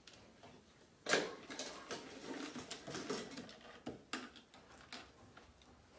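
Puppy scrabbling on a plastic aerobic step, its claws scratching and tapping the surface while hands rub and pat its fur. It starts suddenly with a knock about a second in, goes on as irregular scuffling and clicking, and dies down near the end.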